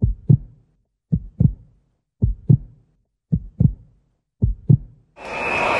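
Heartbeat sound effect: a double low thump, lub-dub, about once a second, five times. Just before the end it stops and loud crowd noise cuts in suddenly.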